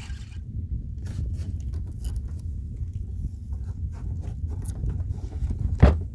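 Strong wind buffeting the microphone as a steady low rumble, with scattered small clicks and taps of handling and one loud knock near the end.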